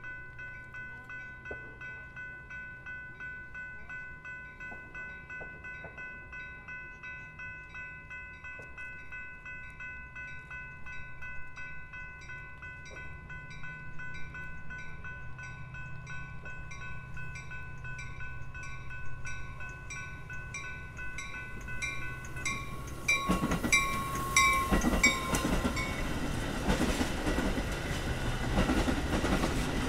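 Railroad grade-crossing warning bell ringing in a steady, even rhythm. About 22 seconds in, a train reaches the crossing, and its loud rumble and wheel noise on the rails take over and drown out the bell.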